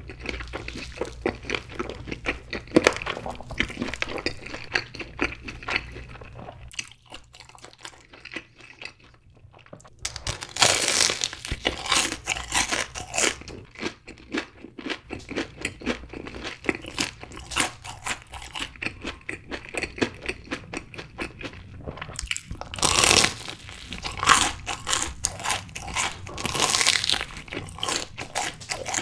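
Close-miked chewing of sauced fried chicken, then loud crunchy bites into a Cheetos-coated corn dog starting about ten seconds in and twice more near the end, each followed by crunchy chewing.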